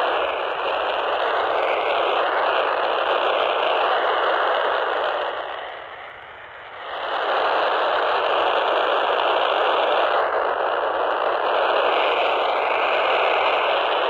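Steady FM static hiss from a PNI Escort HP82 handheld CB radio's speaker, tuned to 27.78125 MHz (UK FM CB channel 19), with no voice coming through. The hiss drops away for about a second around six seconds in, then returns.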